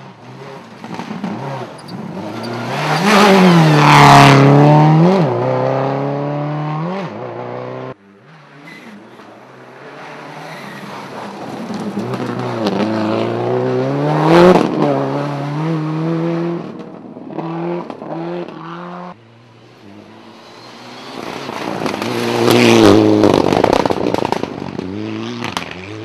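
Rally cars passing one at a time at full attack, three runs in turn, each engine revving hard with quick rises and drops in pitch through gear changes and lifts, getting louder as it goes by. A sharp crack stands out at the loudest moment of the runs.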